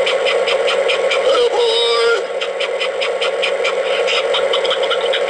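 Lionel Lion Chief Mystery Machine diesel locomotive's onboard sound system playing its idling diesel engine sound through a small speaker, with a steady hum and a rhythmic clatter about four times a second. About a second and a half in, a short pitched sliding sound cuts in over it for under a second.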